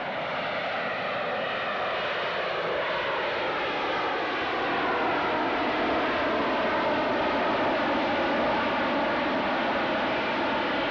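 AV-8B Harrier II's Pegasus vectored-thrust turbofan roaring steadily in a low hover, its exhaust blasting straight down. The roar has a slow wavering, phasing shift in tone and grows a little louder about halfway through.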